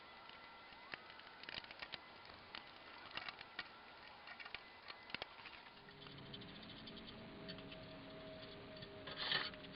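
Scattered light clicks and metallic knocks of tools and parts as the old fence and rails of a table saw are taken off. About six seconds in, a faint steady hum joins, and near the end there is a louder cluster of knocks.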